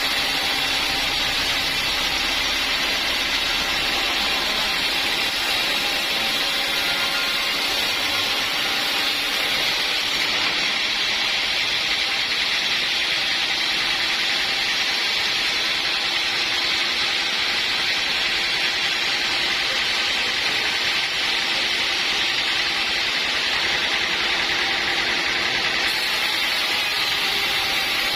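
Sawmill machinery running steadily, with the saw cutting wood: a continuous even mechanical noise with no breaks.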